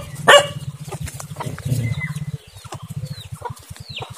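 A dog barks once just after the start, then a low throbbing rumble runs on and fades out, with a few faint bird chirps.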